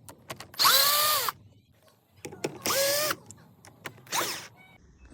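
Cordless power driver running in three short bursts, its motor pitch rising and falling with each, as it unscrews the screw clamping the brake pump to the scooter handlebar.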